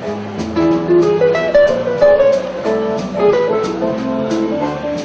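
Live band music: a plucked guitar melody of quick single notes over bass and drums, with regular cymbal taps.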